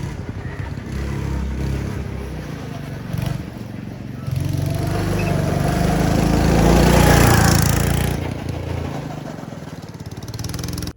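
Twin-seat go-kart's small engine running under throttle on the track, growing louder about four seconds in, peaking around seven seconds, then easing off.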